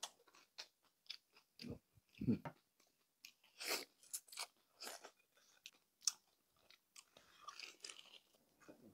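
Close-up eating of crispy pata, deep-fried pork leg: irregular crisp crunches and chewing, with a couple of heavier bites about two seconds in.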